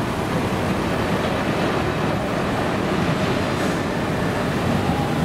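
Peter Witt-type tram running along street track, approaching: a steady noise of wheels on rails mixed with road traffic.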